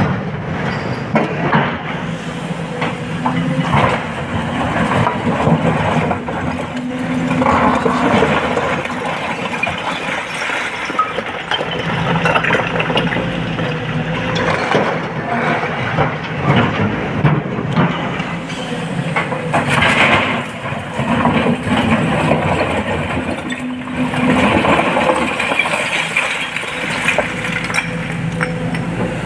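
SANY 225 excavator's diesel engine running under load, its pitch rising and falling as it works, with repeated knocks and clatter of rock and material being loaded into a dump truck.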